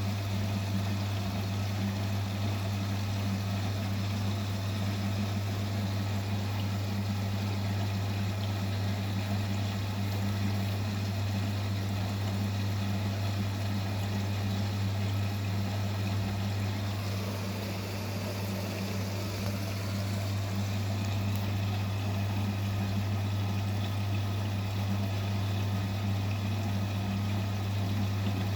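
Vestel CMI 97302 washing machine running a 30 °C curtain wash: a steady low hum with a wash of water noise, easing slightly about two-thirds of the way through.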